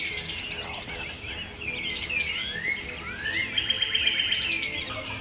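Dawn chorus of songbirds: several birds singing over one another with repeated whistled notes slurring downward. About two and a half seconds in, a rising whistle leads into a fast trill.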